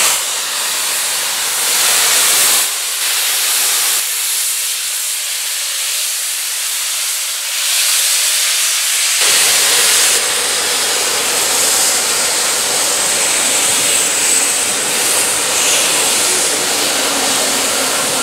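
Loud steady hiss of steam escaping from the LNER A3 Pacific steam locomotive Flying Scotsman and its train as it moves slowly past, with a brief thin high whine about two-thirds of the way through.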